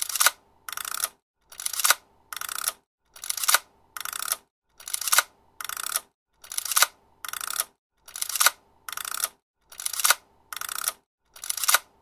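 Old film camera's mechanism cycled over and over: in each cycle a loud sharp mechanical snap and, about half a second later, a shorter quieter mechanical burst of the lever. The pair repeats about every 1.6 seconds, seven or eight times.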